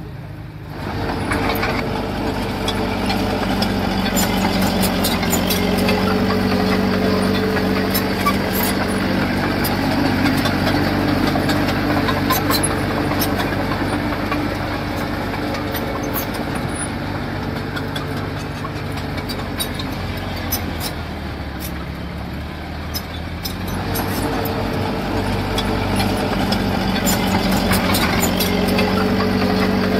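Diesel engine of heavy construction machinery running steadily. It picks up about a second in, eases off around twenty seconds in, and works harder again a few seconds later.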